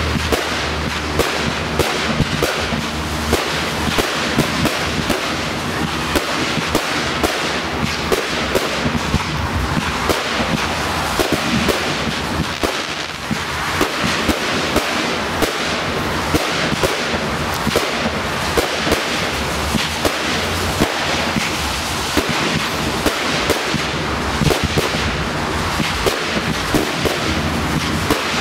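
Fireworks display: a continuous wash of crackling with many sharp bangs, several a second.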